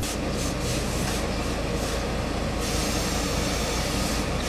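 Tailor's hose-fed steam iron hissing as it presses wool suit trousers: short spurts of steam at first, then a steady, louder hiss from a little past halfway.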